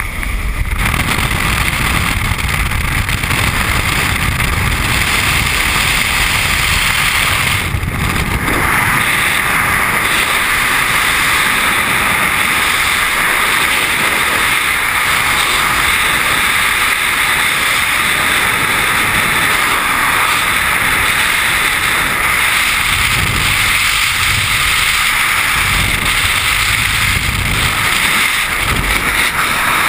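Freefall air rushing over a GoPro's microphone during a tandem skydive: a loud, steady wind noise. It sets in about half a second in and holds, with a brief dip near eight seconds.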